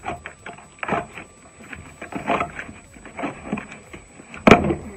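Gloved hands tearing the packing tape and pulling open the flaps of a cardboard shipping box: irregular ripping, scraping and crinkling noises, with one much louder sudden tear near the end.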